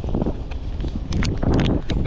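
Wind buffeting the microphone with a low rumble, and a quick run of short knocks about a second in.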